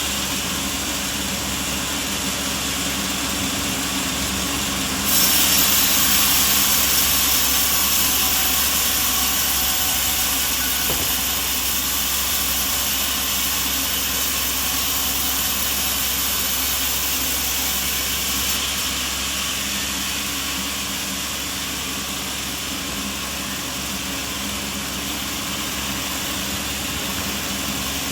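Sawmill machinery running steadily with a motor-like hum. About five seconds in, a louder hiss sets in abruptly and lasts until about eighteen seconds in.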